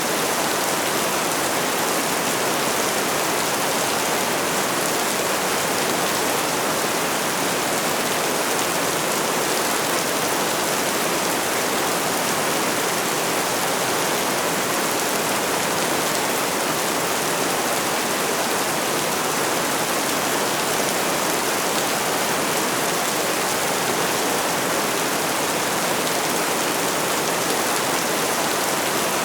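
Steady rainfall, an even hiss of drops with no breaks or changes.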